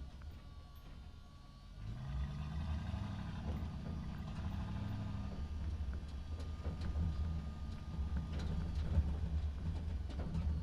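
Low engine sound of a cartoon construction vehicle: it revs up with a rising pitch about two seconds in, then runs steadily, with a few faint clicks over it.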